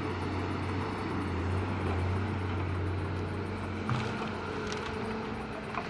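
Engine running steadily with a low hum. About four seconds in there is a small knock, the low hum drops away and a higher, thinner hum carries on.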